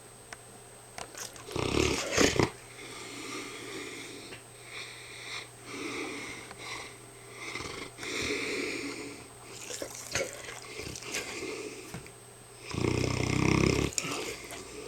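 A sleeping mastiff snoring. There is a loud, deep snore about two seconds in and another near the end, with quieter snoring breaths in between.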